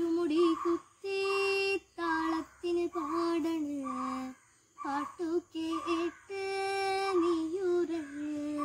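A young girl singing solo without accompaniment, in short phrases of held, steady notes separated by brief pauses.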